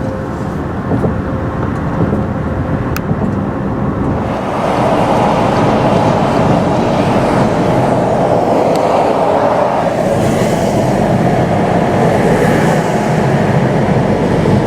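Steady road and wind noise inside the cabin of a 2018 VW Tiguan SEL at highway speed. It grows louder about four and a half seconds in and then holds steady.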